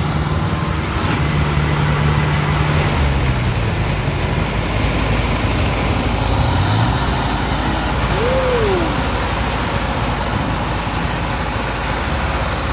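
Large engine of a rice-harvesting machine running steadily, its speed dropping and coming back up about six seconds in, with a short rising-then-falling whine a little past the middle.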